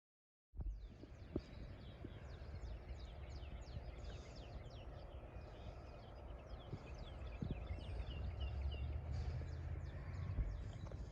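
Outdoor ambience that starts abruptly about half a second in: many birds chirping in quick, short calls over a steady low rumble, with a few faint knocks.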